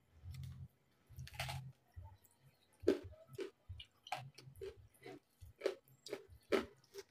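Close-miked chewing of crispy deep-fried pork knuckle (crispy pata): one long crunch about a second and a half in, then a run of short sharp crunches about two a second.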